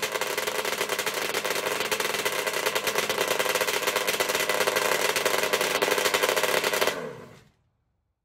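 Yamaha Banshee's two-stroke twin engine running steadily with a rapid, rattly firing, then dying away about seven seconds in.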